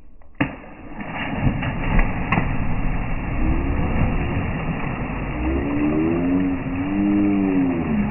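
Slowed-down sound of a jump into water: a sharp knock, then a deep, drawn-out splash and rumble. Low, stretched-out voices come in over the last few seconds.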